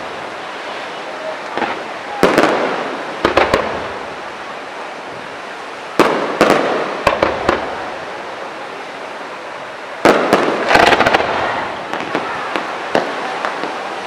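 Fireworks display: aerial shells bursting with sharp bangs at about two, three, six, seven and ten seconds in. Each bang is followed by a quick string of smaller pops and a slowly fading rumble.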